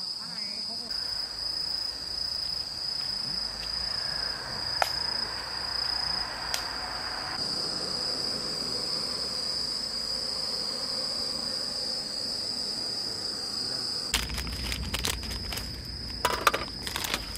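Crickets and other night insects chirring steadily as one continuous high trill. Near the end a plastic bag crinkles and rustles as it is handled.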